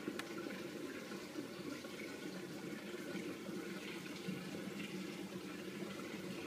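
Steady rush of moving water in a home aquarium, with a single faint click just after the start.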